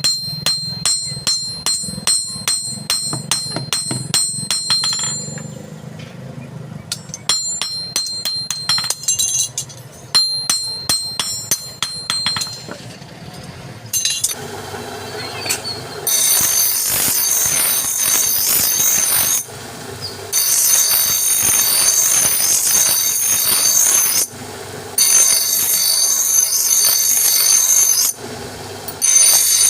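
A hammer strikes metal rapidly with a high metallic ring, in three runs of blows. About halfway through, a power tool starts running loudly with a high, hissing whine, in long stretches broken by short stops.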